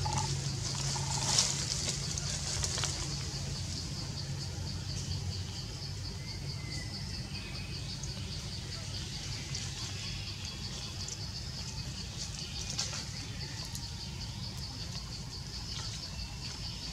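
Forest ambience dominated by a steady, rapidly pulsing high-pitched insect chorus, over a low hum that fades after the first few seconds, with a few faint clicks.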